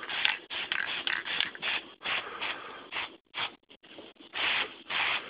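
Black spray paint hissing out in short, irregular bursts, about two to three a second, with a brief pause a little past the middle.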